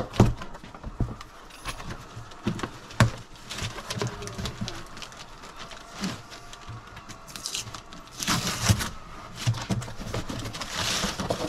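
A cardboard shipping box being handled and opened: scattered taps and knocks on the cardboard, then scraping and rustling as the box flaps are pulled open in the last few seconds.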